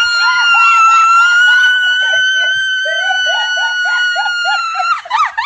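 A long, high-pitched scream of joy held for about five seconds, with shorter excited cries and laughter from others underneath. Near the end it breaks into rapid up-and-down whooping cries.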